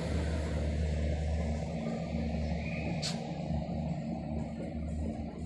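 Class 170 Turbostar diesel multiple unit pulling out of the station, its diesel engines droning steadily, with one sharp clank about three seconds in.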